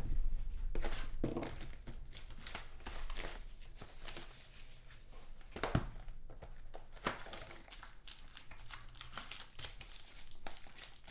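Plastic shrink-wrap crinkling and tearing as a sealed box of football trading cards is unwrapped, then the cardboard lid opened and the foil card packs handled: irregular crackles and clicks, with one sharper click about six seconds in.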